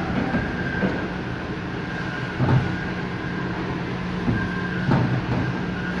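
A steady machine hum with a few short knocks and clunks as a yellow polyethylene gas service pipe is worked into a metal service box.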